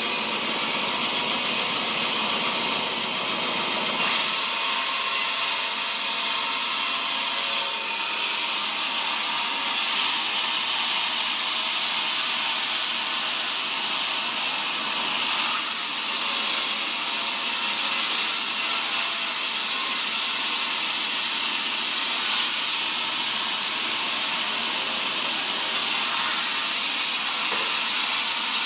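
Large sawmill band saw running steadily while a cempaka log, a soft wood, is fed through it: a continuous, fairly high-pitched rushing whine of the blade cutting.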